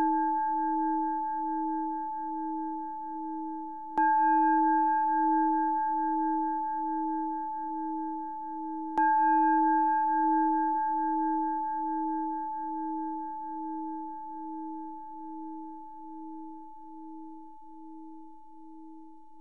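Buddhist bowl bell struck twice, about 4 and 9 seconds in, each strike adding to the ringing of the one before. It rings with a slow pulsing hum under a clear higher tone, slowly dying away.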